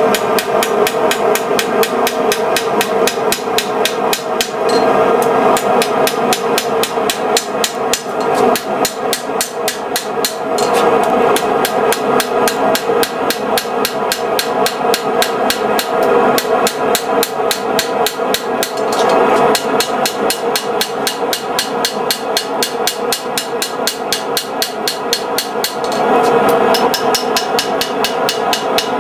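Hand hammer striking a hot steel blade on a steel anvil in a rapid, steady run of blows, each ringing: the blade being forged at heat.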